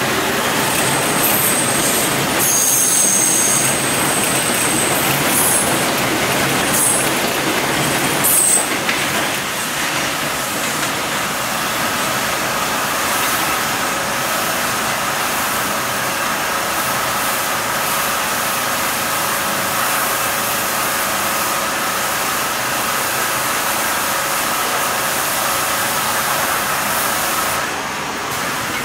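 R142 subway train running on elevated track, with high wheel squeal on and off during the first several seconds, then steady running noise with a faint constant hum until it eases off near the end.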